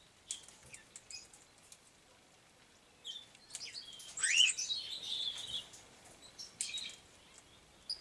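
Aviary parrots calling: a few short chirps, then a louder burst of chirping with a rising call between about three and six seconds in, and a few more chirps near the end.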